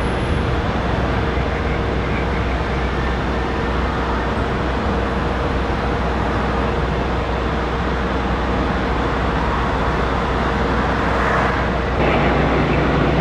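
Bombardier CRJ-900's twin CF34 turbofans at take-off power: a steady jet roar with a held whine. About twelve seconds in it cuts off sharply and gives way to a different, slightly louder engine noise.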